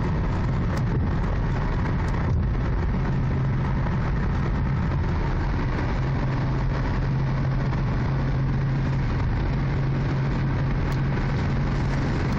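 Ford Mustang cruising at motorway speed, heard inside the cabin: steady engine drone over road and tyre noise, with a steady low hum that settles in about three seconds in.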